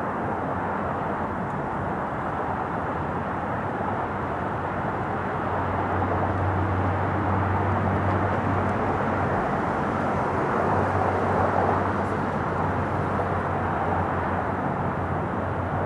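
Boeing 747-8F freighter's four GEnx-2B turbofans at climb power as the jet passes overhead after takeoff: a steady jet roar that swells slightly in the middle, with a deep hum beneath it.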